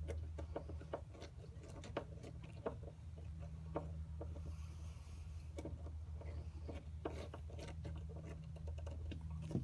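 Scattered light clicks and taps from hands handling the tail light assembly and its screws, over a steady low hum.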